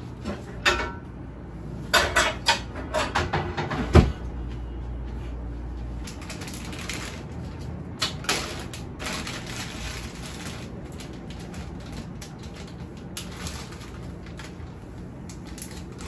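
Groceries being put away in a refrigerator-freezer: a series of knocks and clatters in the first few seconds, ending in one loud thump about four seconds in, then plastic bags rustling and crinkling as food is packed onto the freezer shelves.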